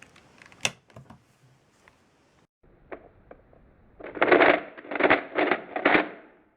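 3x3 Rubik's Cube layers being turned, plastic clicking and rattling: a few scattered clicks at first, then a loud run of turns about four seconds in, in four or five quick pulses over two seconds.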